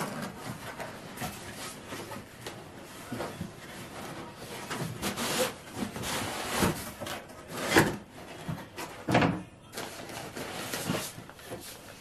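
A cardboard shipping box being opened by hand: the flaps scrape and rustle, with a few louder knocks as contents are handled and lifted out.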